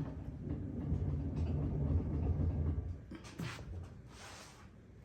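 Table saw making a cut through a thick plastic cutting board on a crosscut sled: a low steady rumble for about three seconds that then dies away, with a couple of brief scraping sounds after it.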